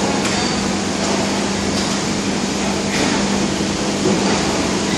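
Loud, steady machinery noise in a workshop: an even roar with a low hum under it and a few faint knocks.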